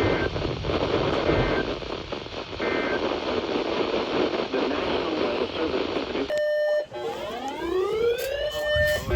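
Radio static carrying three brief paired-tone data bursts about a second and a half apart, typical of an Emergency Alert System end-of-message code. About six seconds in, the static cuts out, a short steady beep sounds, and then an electronic alert tone sweeps upward again and again.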